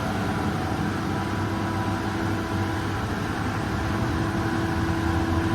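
Kaeser SK25T rotary screw air compressor running steadily under load as it builds pressure in its air receiver: an even mechanical hum with a held steady tone.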